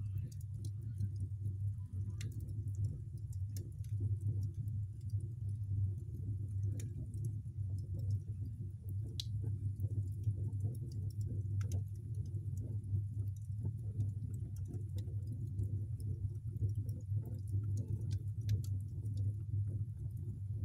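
Wood fire burning around an ankle boot: a steady low rumble of flame with irregular sharp crackles and pops.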